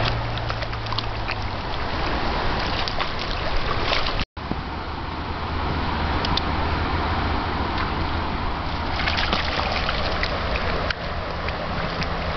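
Shallow stream rushing over stones, with scattered splashes from a puppy's paws wading through the water. The sound cuts out for a moment about four seconds in.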